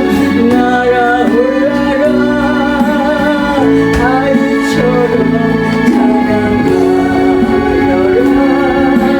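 A solo voice singing a Korean Christian praise song, with long held notes that waver in pitch, over an accompaniment of sustained chords.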